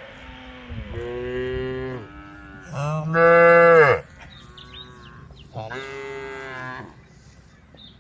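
Cows mooing three times, calling to the herd, each moo about a second long, the second the loudest.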